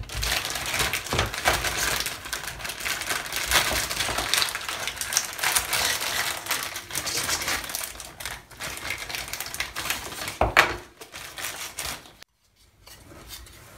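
Clear plastic parts bag crinkling as thin laser-cut plywood kit pieces are pulled out of it, with many small clicks and clacks of the wooden parts. A sharper knock comes about ten seconds in, after which the handling goes much quieter.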